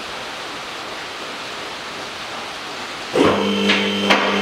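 Steady background hiss, then about three seconds in a car lift's electric motor and hydraulic pump start suddenly with a steady hum as the lift begins raising the car. Two sharp clicks follow about half a second apart.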